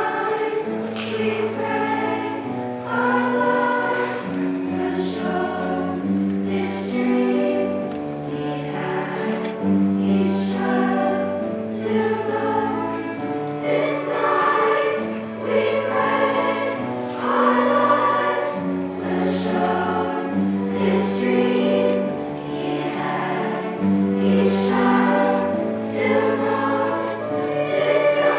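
A choir singing, with long held chords that change every second or two.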